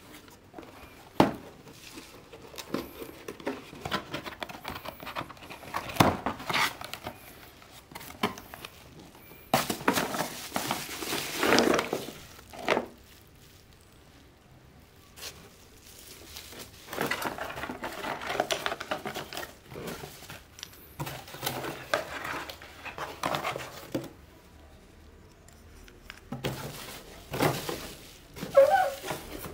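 Cardboard box and bubble wrap being handled while a moon lamp is unpacked: irregular rustling, crinkling and scraping, broken by several sharp knocks and taps.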